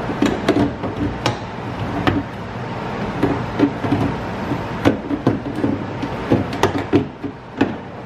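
A BMW E90 rear door lock actuator and latch assembly being worked by hand back into the door shell. Its plastic housing gives irregular knocks, clicks and rattles against the door's inner panel, over a steady low hum.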